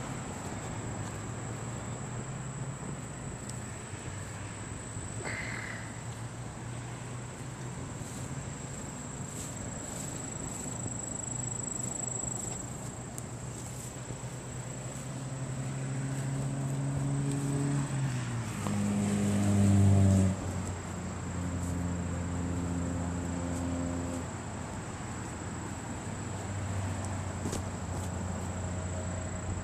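Traffic on a highway: vehicle engines running with a low drone that climbs in pitch and swells about two-thirds of the way through, then drops off suddenly. A steady high insect buzz runs underneath.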